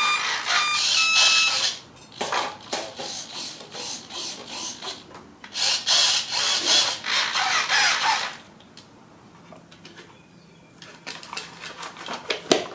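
A few short electronic beeps from the brushless motor's speed controller as the flight battery is plugged in. Then the battery and wires rustle and scrape as they are pushed into the glider's fuselage, in several spells.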